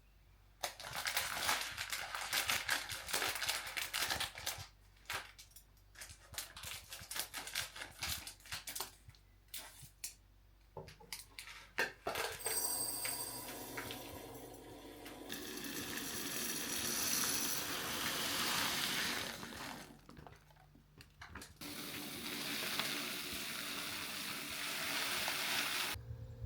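Household handling sounds: quick clinks and knocks for about twelve seconds, then running water, which stops for about a second and a half around twenty seconds in and runs again until near the end.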